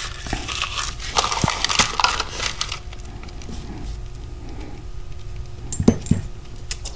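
Plastic packaging crinkling as small hardware parts are handled. A couple of sharp clicks about six seconds in.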